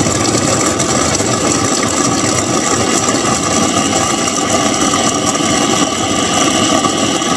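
A machine's motor running steadily and loudly, with an even mechanical hum and no change in speed.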